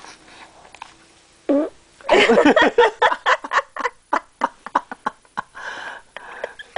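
A baby's long, sputtering fart, loudest about two seconds in and trailing off into a run of short pops.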